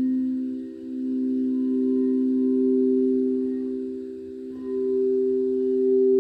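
Crystal singing bowls ringing in steady, overlapping tones that swell and fade. A mallet strike about four and a half seconds in starts a new, louder note.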